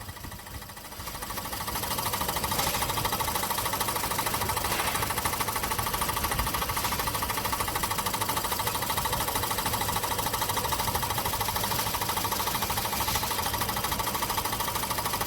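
Running 2017 Ford Escape 1.5-litre turbo engine with a rapid, steady knocking from the turbocharger, almost like a rapid rod knock. The turbo's vacuum wastegate actuator has a busted diaphragm that cannot hold vacuum, so each vacuum pulse pulls the wastegate rod back a little and it slaps back. The knocking builds about a second in and then holds steady.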